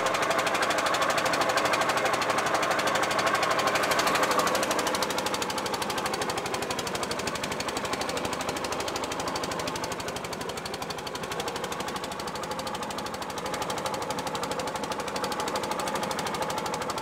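Small single-cylinder petrol engine with a pull-start, driving the boat, running steadily with a rapid, even chatter of firing beats. It drops slightly in loudness about five seconds in.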